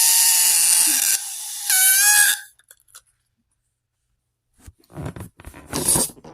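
Rubber balloon squealing as air escapes through its stretched neck: a shrill, steady whine with hiss that breaks off about a second in, comes back briefly and stops. After a pause, a few short knocks and rustles near the end.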